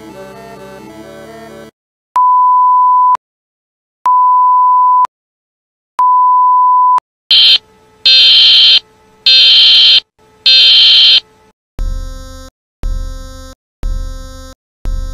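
Synthesized fictional emergency-alert alarm: three steady one-second beeps at a single pitch, then four loud, harsh, rasping buzzes, then four shorter deep, buzzy tones that fade after each strike. A short stretch of music ends just before the first beep.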